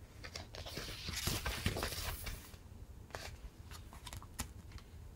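Paper sticker sheets rustling and crinkling as they are handled and unfolded, with a denser burst of rustling about a second in and scattered small clicks and crackles.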